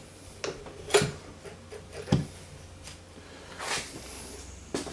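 Knocks and clicks of a small rotary drill being set into a wooden drill-press mount: several separate sharp knocks, the loudest about a second in, and a brief rustle near the end.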